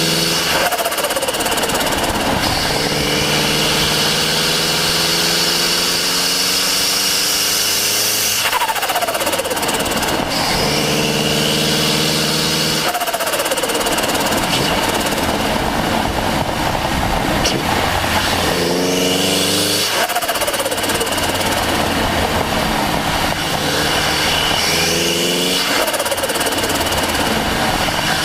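Turbocharged Mazda MX-5 Miata engine, heard from right beside the turbo, revving up hard through the gears, its pitch climbing on each pull. The throttle lifts about four times, and each time the turbo's whine falls off in a quick downward sweep before the next pull. A steady rush of wind and road noise lies under it all.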